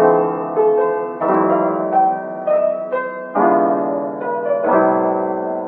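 Background piano music: a melody of single notes over held chords that change every second or two.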